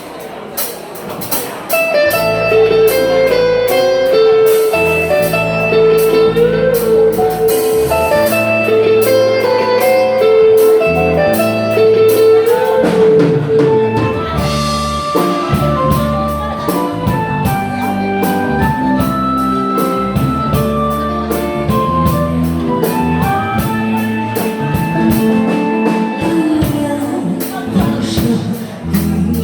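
Instrumental backing music with a steady drum beat, a bass line and a sustained melody over guitar; no one sings.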